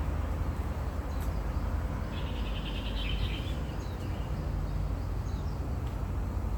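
Steady low outdoor rumble, with a small bird's rapid, high trill lasting about a second and a half, starting about two seconds in, and a few faint short chirps after it.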